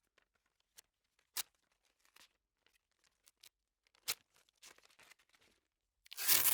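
Office adhesive tape: a few sharp ticks and faint crackles, then near the end a loud ripping sound as a strip is pulled off the roll.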